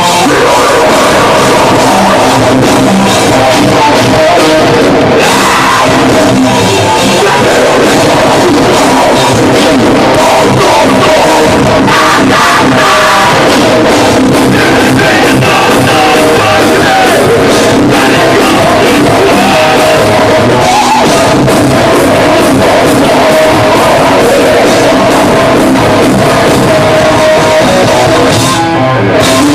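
Heavy metal band playing live: loud, distorted electric guitars, bass and drum kit with a singer, recorded from the audience so the sound is saturated and clipped.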